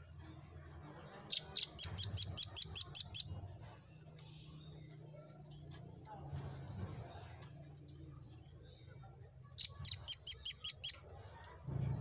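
Velvet-fronted nuthatch singing: two fast, high trills of sharp notes, about six a second. The first trill starts about a second in and lasts about two seconds; the second, shorter one comes near the end, with a single short chirp between them.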